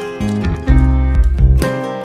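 Background instrumental music with a strong bass line.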